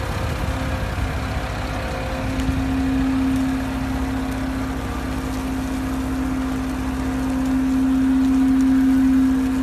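Tractor diesel engine running steadily while towing a slurry vacuum tanker that is spreading liquid manure: a steady low drone with a strong hum that swells louder about two-thirds in.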